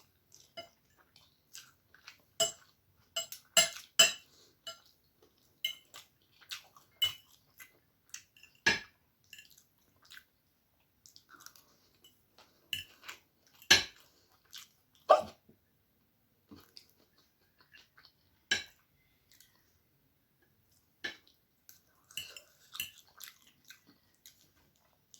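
Close-up eating sounds: egg chow mein noodles being chewed, heard as scattered, irregular clicks and smacks with quiet gaps between, and a few sharper taps against a plate.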